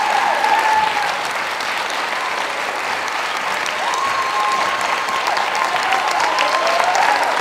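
Audience applauding steadily, with a few voices calling out over the clapping for a while past the middle.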